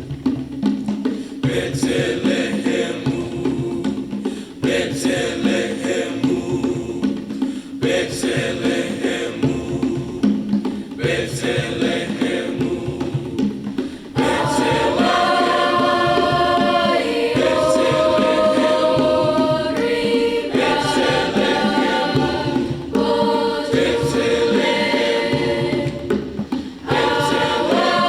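Music: a choir singing with accompaniment, growing louder about halfway in with long held notes.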